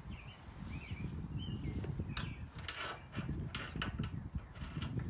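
Metal clinks and rattles of hand tools and hardware being handled while working a nut and bolt on a garden tractor's grille, coming thick from about two seconds in. Birds chirp faintly in the first second or so.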